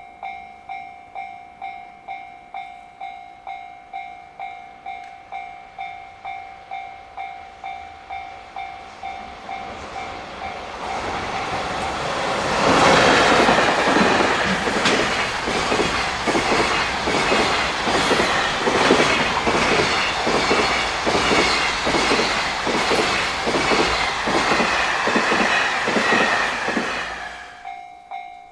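Japanese level-crossing bell ringing in even electronic strokes, a little over two a second. About ten seconds in, an EF65 electric locomotive hauling a container freight train approaches and passes. For about fifteen seconds the wagons' wheels clatter rhythmically over the rail joints and drown out the bell, which is heard again near the end.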